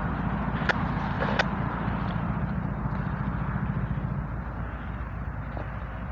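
GE ES44AC diesel locomotives idling with a steady low rumble that eases slightly after about four seconds. Two short clicks sound about a second in.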